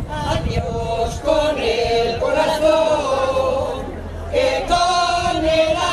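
A mixed group of women's and men's voices singing a Galician folk song together, the pandeireteiras' traditional group singing, with a dip in the singing around four seconds in.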